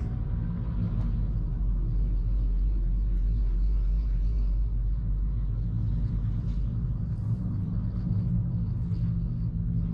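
Steady low rumble of a car heard from inside the cabin: engine and road noise while driving.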